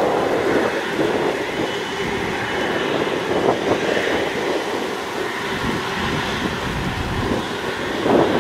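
Airbus A330-343's Rolls-Royce Trent 700 turbofans running at taxi power as the jet taxis and turns: a steady engine noise that grows louder near the end.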